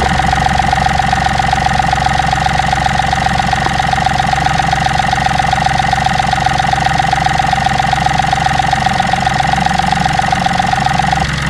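Fuel injector on an idling three-cylinder car engine heard through a mechanic's stethoscope pressed on its body: a continuous, rapid tick-tick of the injector pin over the engine's hum, with a steady tone running through it that cuts off near the end. The unbroken ticking is the sign that this injector is working.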